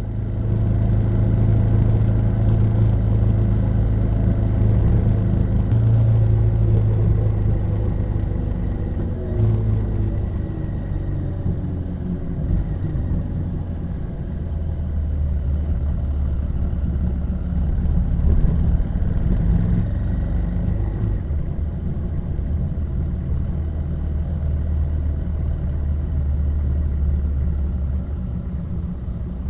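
A motor vehicle's engine running with a steady low rumble, its pitch shifting a little now and then as it goes.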